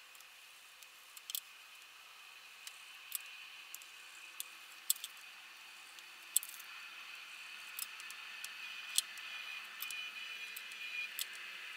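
Faint scratching of drawing strokes on a black drawing board, scattered with light, irregular taps and clicks. The scratching grows denser and a little louder for the last few seconds.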